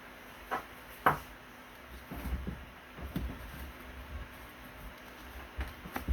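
Handling noises: scattered clicks and knocks, the loudest about a second in, with a cluster of soft low thumps around two seconds in.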